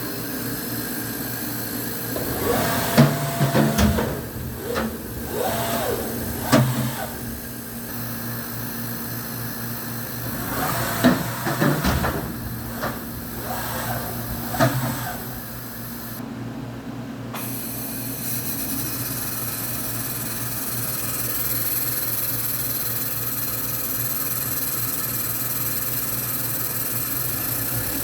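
1996 Fadal VMC4020 vertical machining center running, with a steady hum. Twice, from about 2 to 7 seconds in and again from about 10 to 15 seconds in, come whines that rise and fall in pitch, along with sharp clunks and clicks. From about 18 seconds in the running noise is steady and a little louder.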